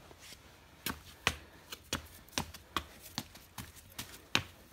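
A Samoyed puppy's claws clicking and tapping on a ceramic tile floor as it scampers about, in irregular sharp clicks, about two to three a second.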